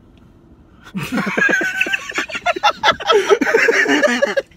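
People bursting into loud, cackling laughter about a second in, in quick repeated shrieks and gasps, cutting off abruptly near the end.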